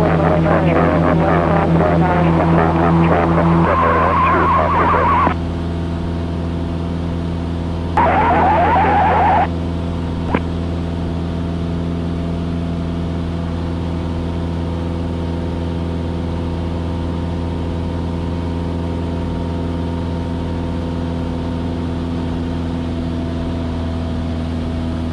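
Cessna 172S's four-cylinder engine and two-blade propeller droning steadily in cruise flight, inside the cockpit. A garbled radio transmission plays over the drone until about five seconds in, and a second short burst of radio follows about eight seconds in, then a single click.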